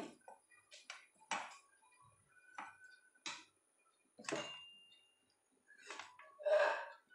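Metal spoon or spatula scraping and knocking against a pan while sticky peanut-jaggery chikki mixture is scooped onto a greased plate: a string of separate short scrapes and taps about a second apart, with a faint metallic ring now and then.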